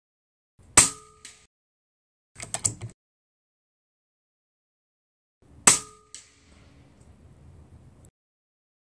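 Two shots from a Taipan Veteran Long regulated bullpup PCP air rifle, about five seconds apart. Each is a sharp crack with a brief ringing, followed about half a second later by a faint tick as the pellet strikes the steel target 75 yards downrange. A short clatter comes between the shots.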